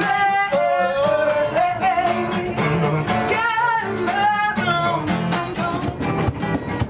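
Acoustic guitar played with a voice singing along; the voice drops out after about four and a half seconds, leaving the guitar playing on.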